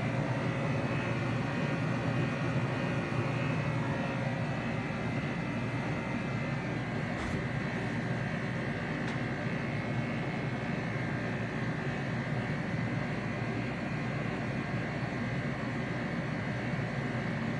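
Ruud 80-gallon hybrid heat pump water heater running in heat pump mode: a steady hum and whoosh from its compressor and fan, with two faint ticks around seven and nine seconds in.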